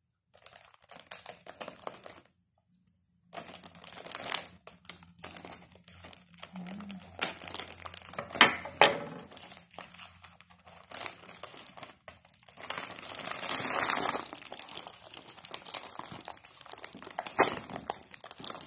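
Clear cellophane wrap crinkling and rustling as it is handled and pulled loose from a platter of chocolates, in uneven spurts that stop for about a second near the start.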